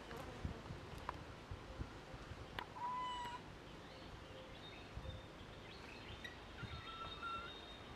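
Young macaque giving short, high-pitched squeaky calls: one about three seconds in and a longer one near the end, with faint clicks between them.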